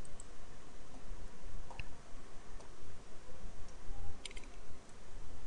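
A few faint computer mouse clicks, one a little under two seconds in and a quick pair about four seconds in, over a low steady background hum.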